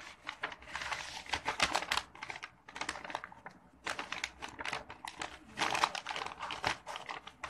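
Gift wrapping paper crinkling and crackling as fingers pick at its edge and tape to open it: quick, irregular rustles with a brief lull a little past halfway.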